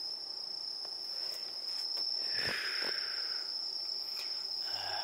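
Night insects trilling steadily at one high pitch, with a brief soft rustle and a couple of faint clicks about halfway through.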